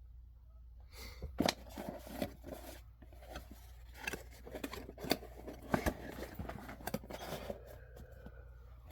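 Packaging being handled during an unboxing: irregular rustling and crinkling with scattered sharp clicks and taps.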